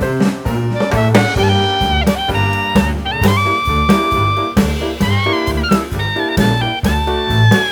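Background music: upbeat jazz with a brass lead over a steady drum and bass beat.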